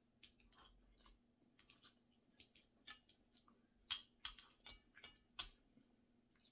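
Quiet close-up eating sounds: a person chewing, with irregular soft clicks and smacks. The loudest few come about four to five and a half seconds in.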